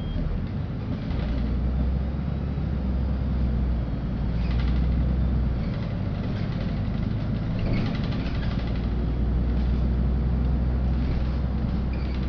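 Interior of a LiAZ-5292.65 city bus on the move: a steady engine and road rumble with light rattles. The low engine hum swells about a second in, eases near six seconds, and swells again around eight seconds.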